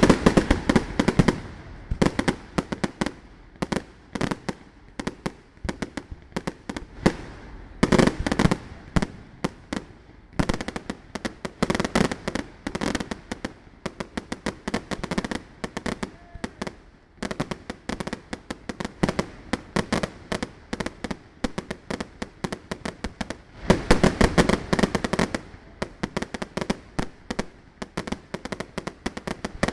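Aerial fireworks display: a continuous, irregular string of shell bursts and pops. It builds to several dense volleys, the heaviest at the very start and again about twenty-four seconds in.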